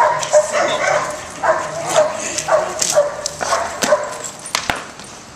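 A Rottweiler gripping a bite sleeve gives short, high yips and whines, about two a second, fading toward the end, with a few sharp cracks among them.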